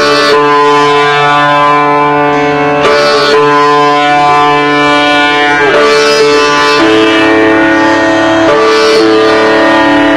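Sitar played slowly and without drums: single plucked notes ring on for a second or more, several of them bent in pitch by the left hand, over a steady low drone. A new note is struck every few seconds.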